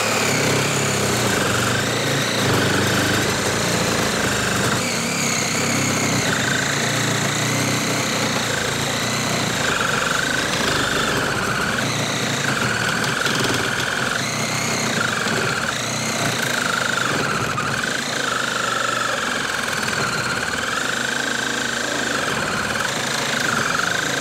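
Cordless reciprocating saw with a 9-inch carbide-tooth blade cutting through a thick square wooden post, the motor running flat out with a steady, slightly wavering whine over the rasp of the blade in the wood.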